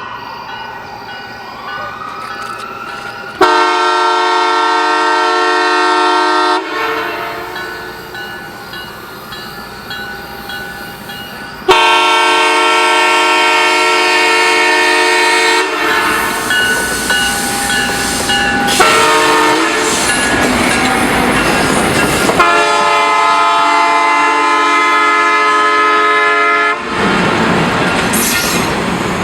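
Diesel locomotive's multi-chime air horn sounding two long blasts, a short one and a final long one, the standard grade-crossing signal. Between the later blasts and after them the train's engine and wheels run by.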